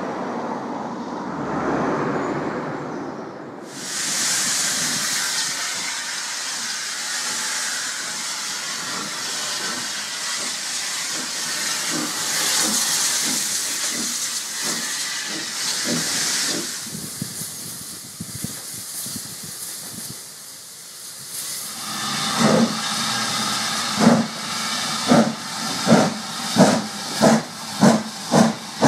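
Robert Stephenson & Hawthorns industrial steam locomotive hissing loudly with escaping steam for about twelve seconds. Later the same kind of engine gets under way, its exhaust beats coming faster and faster as it pulls a coach away.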